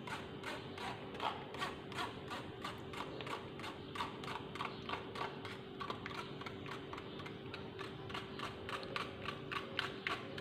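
Metal spoon scraping and tapping against a fine stainless-steel mesh strainer as peach gelatin glaze is pushed through it, making a fast, irregular run of small scratchy ticks.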